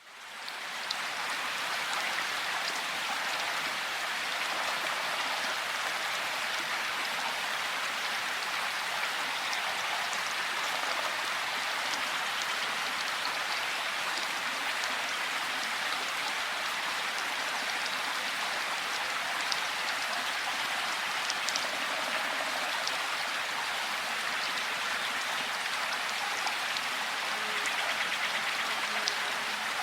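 Steady heavy rain falling, an even hiss with scattered sharper drop ticks, fading in over the first second; no thunder is heard.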